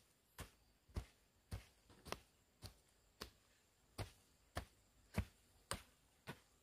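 Faint, steady chopping: a hand tool strikes about eleven times, a little under two sharp blows a second.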